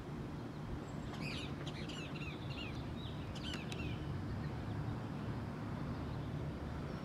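A small bird chirping in a quick series of short, sweeping calls between about one and four seconds in, over a steady low background rumble.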